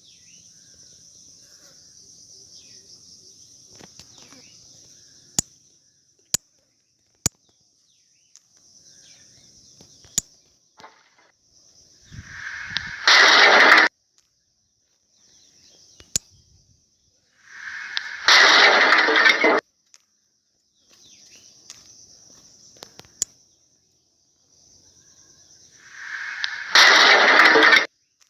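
Fight sound effects played back three times, each a rising whoosh into a loud hit lasting about a second and a half. They come about halfway in, again a few seconds later, and near the end. Under them runs a steady high-pitched hiss, with a few sharp clicks.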